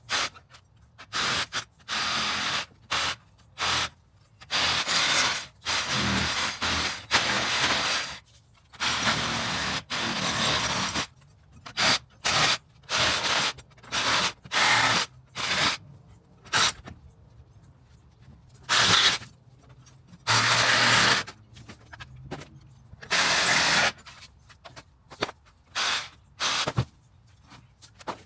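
Repeated bursts of tool noise on fence boards, each from a fraction of a second to about two seconds, starting and stopping sharply with short pauses between. This is the work of taking off and replacing broken fence boards.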